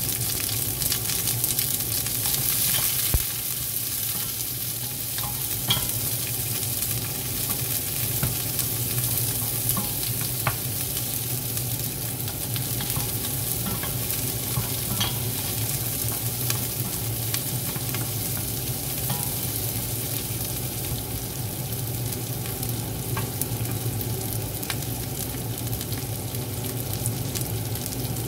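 Chopped onion sizzling steadily in hot oil in a pot, with scattered sharp clicks and scrapes as a wooden spatula stirs it. A steady low hum runs underneath.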